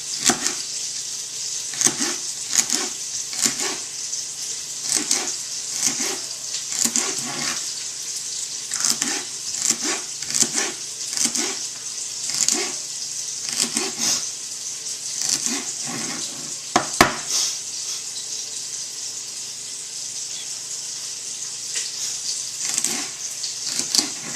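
Pork sausage sizzling in a pot on high heat while a spoon stirs it, scraping and knocking against the pot about once or twice a second. One sharper knock comes near the two-thirds mark.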